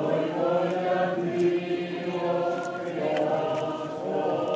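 A procession congregation singing a religious hymn together, a slow chant of held notes.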